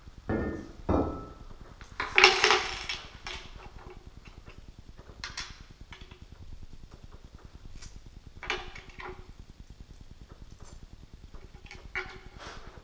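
Steel hardware clinking and clanking: a steel flying frame, screws, washers and an Allen key handled and set down on a loudspeaker cabinet. Two dull knocks come first, then the loudest metallic clank about two seconds in, ringing briefly, followed by scattered lighter clicks.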